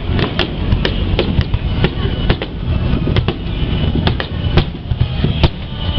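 Aerial fireworks bursting in quick succession: about a dozen sharp bangs and cracks at irregular intervals over a continuous low rumble.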